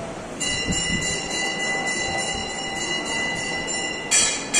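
Temple bell struck about half a second in and ringing on with several clear high tones, then struck again twice near the end.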